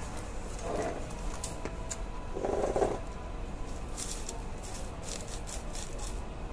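Light rustling and crisp ticking as hands work an artificial orchid arrangement in its pot, busier in the second half, with a short muffled low sound about two and a half seconds in.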